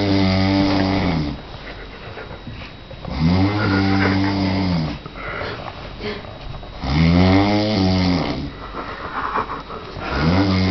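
A person snoring loudly in their sleep: long, low, pitched snores about every three and a half seconds, with softer breathing between. The first snore is already under way and the fourth begins near the end.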